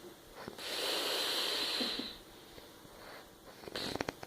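A sleeping person breathing noisily between snores: one long hissing breath of about a second and a half, then near the end a quick run of clicking, snorting throat sounds, like choking on their own throat.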